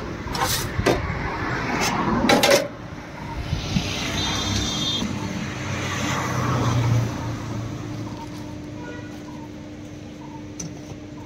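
A few clanks of large stainless-steel pot lids being moved in the first couple of seconds, then a motor vehicle passing on the road, fading into steady street background noise.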